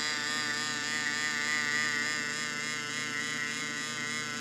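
Small DC motor from a hand-crank flashlight, driven as a motor by a 6-volt charger, running with a steady whine whose pitch wobbles up and down rhythmically. The wobble comes from the flashing red and white LEDs loading the circuit.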